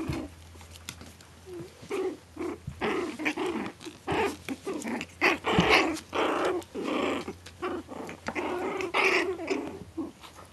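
Four-week-old Maltese × Shih Tzu cross puppies growling in play, a string of short, irregular little growls.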